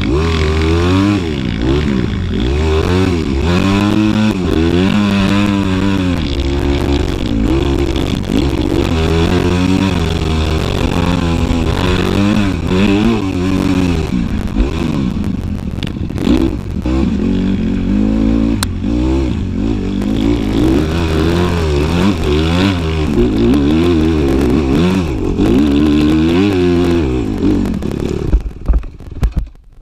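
Dirt bike engine heard from on board while riding, revving up and down over and over as the rider works the throttle and shifts gears. The engine noise drops away suddenly at the very end.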